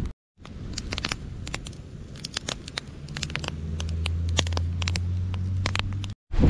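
Open wood fire crackling, with frequent sharp snaps and pops from the burning sticks. From about halfway a low steady drone comes in and is the loudest sound.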